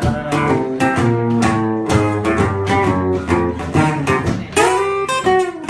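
Acoustic guitar playing a rockabilly tune, picked notes and chords with sharp plucked attacks.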